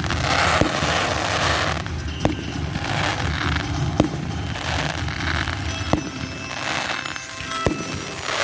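Fireworks display: crackling, fizzing showers of shells that swell and fade, with sharp single bangs every second or two.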